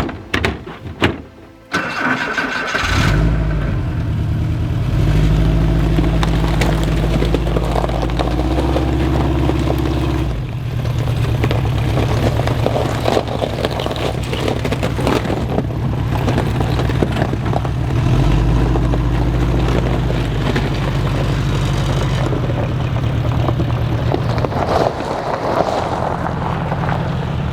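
A door or latch thunks a few times, then a vehicle engine starts about two seconds in and keeps running steadily, its pitch stepping up and down a few times.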